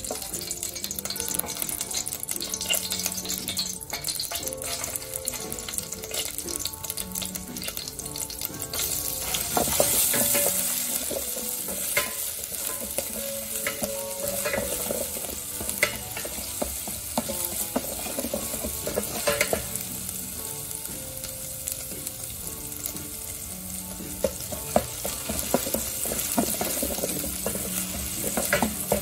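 A wooden spatula stirring in a stainless steel pot, scraping and tapping the metal. From about nine seconds in, minced ginger, garlic and chili sizzle in hot oil as they are stirred.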